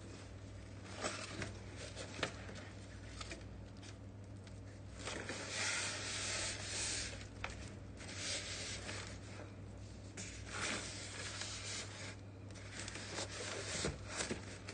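Cardboard carton flaps and polystyrene foam packaging rubbing, scraping and rustling as an induction cooker is slid out of its box. There are scattered light knocks and a longer stretch of rustling about five seconds in. A steady low hum runs underneath.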